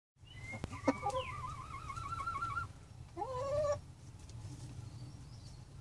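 Domestic hens calling: a long wavering trill starting about a second in, then a short rising squawk about three seconds in, over a low steady hum.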